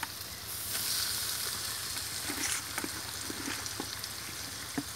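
Chopped squirrel meat frying in a wok of oil and spice paste: a steady sizzle that gets louder about half a second in, with scattered crackles and pops.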